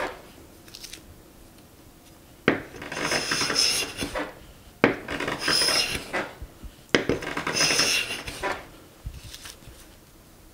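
A Harbor Freight No. 33 bench plane making three passes along a maple board. Each pass starts with a sharp tap as the plane lands on the wood, then a hissing scrape for about a second and a half as it cuts a thin shaving.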